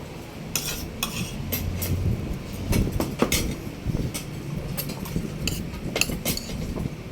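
Scattered clinks and clicks of cutlery against a plate and dishes during a meal, over a low steady background rumble.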